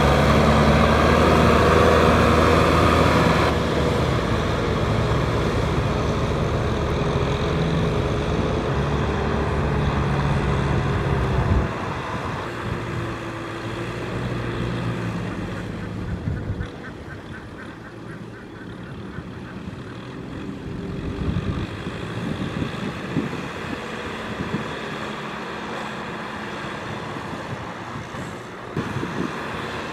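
Kubota M6040 tractor's diesel engine running under load while its rear rotary tiller churns through wet paddy mud. It is close and loud at first, then quieter and more distant from about twelve seconds in.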